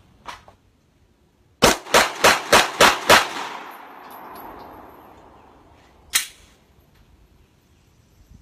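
Pistol fired six times in quick succession, about three shots a second, the reports trailing off in an echo over the next two seconds. One more bang comes about six seconds in.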